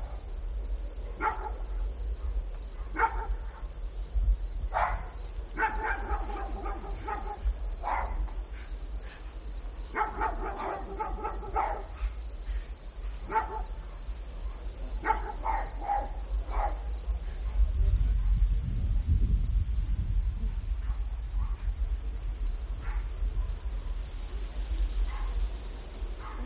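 Crickets trill steadily on one high pulsing note while a dog barks now and then in the distance. A low rumble swells for a couple of seconds about two-thirds of the way in.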